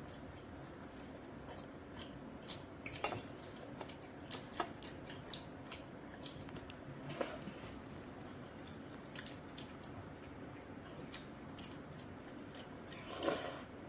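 Forks and spoons clinking and scraping against plates and bowls during a meal: scattered light clicks at irregular intervals, a few louder ones, with a brief rustling burst near the end.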